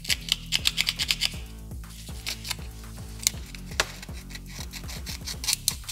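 Knife blade scraping the cut edge of a plastic key fob case. A quick run of short scrapes comes in the first second or so, then occasional single scrapes and clicks, over background music.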